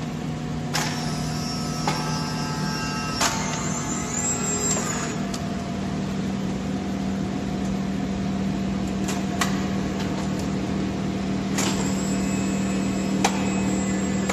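Powered ambulance stretcher's electric drive humming steadily as its legs retract during loading, with a few sharp clicks. A higher whirring tone joins in about a second in, fades a few seconds later, and returns near the end.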